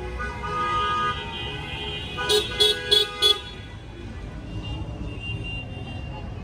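Car horns honking: one held horn note in the first second, then four quick, loud toots a little over two seconds in, over the low rumble of idling cars.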